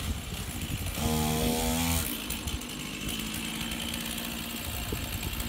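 A large Stihl chainsaw with a 36-inch bar, running. It is revved hard for about a second, starting about a second in, then drops back to a steady idle.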